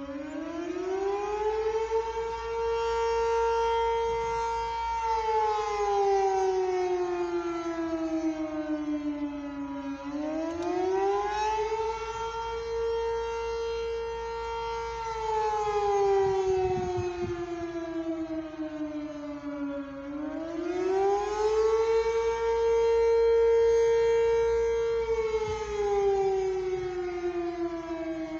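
Civil defense siren sounding a wail during its routine test: its pitch rises over about two seconds, holds for about three, then slides slowly back down, repeating about every ten seconds, three times over.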